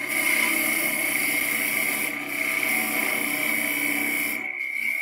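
A wood lathe running, with a turning tool cutting into a small spinning piece of wood as a stub is turned down to about 6 mm. A steady high whine sits under the hiss of the cut, and the cutting noise thins out near the end.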